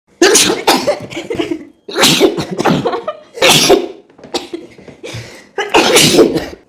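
A person sneezing over and over: five loud sneezes in a row, each about a second long, the fourth weaker than the rest.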